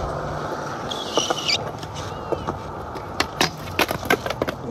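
Skateboard wheels rolling on smooth concrete, with a brief high hiss about a second in. Later comes a quick run of sharp clacks and knocks as the board hits the ground, several of them between about three and four and a half seconds in.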